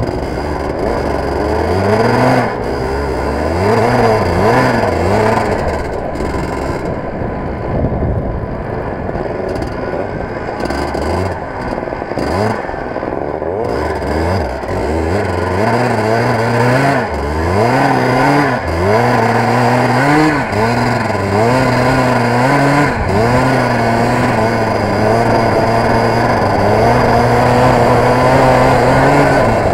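Go-kart engine heard onboard, revving up and dropping off again and again through corners, then holding high revs along a straight near the end, with wind noise over the microphone throughout.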